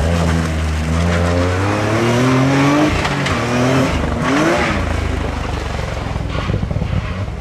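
Toyota GR Yaris rally car's turbocharged three-cylinder engine revving hard under acceleration, its pitch climbing, dropping briefly about three seconds in, then climbing again with a sharp rise about four seconds in. In the second half the engine note gives way to a rougher, noisier sound with tyre noise from the car sliding on the asphalt.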